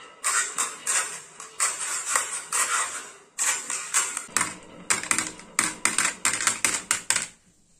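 Glass marbles rolling down a wooden groove track and dropping into a plastic toy dump truck's bed: a rapid, irregular run of clicks and clacks as they strike the wood, the plastic and each other. The clatter stops abruptly near the end.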